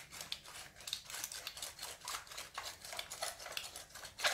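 Hand pepper mill grinding pepper: a steady run of quick, irregular clicks, several a second, with a sharper click near the end.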